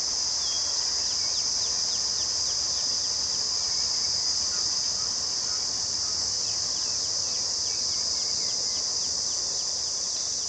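Insects droning steadily in a high-pitched band, with short bird chirps repeating over it.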